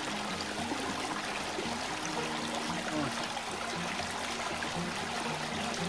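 Small river flowing steadily, a continuous rush of water.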